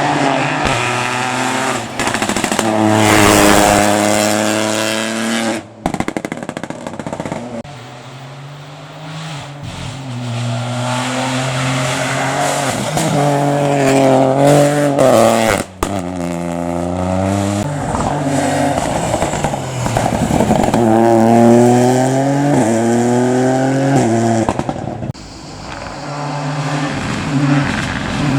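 Rally cars driven flat out one after another, their engines revving high and dropping repeatedly with gear changes and braking. The sound breaks off abruptly a few times, between short passes.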